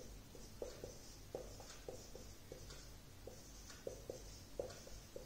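Marker pen writing on a whiteboard: faint, irregular short strokes and taps of the tip on the board, several a second.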